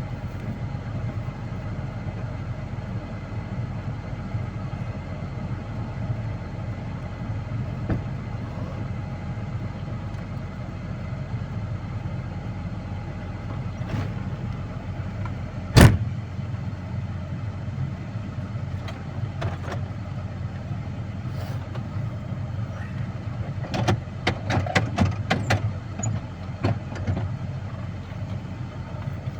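Heavy vehicle's engine running steadily, heard from inside the cab, with one sharp knock about halfway through and a run of clicks and rattles near the end.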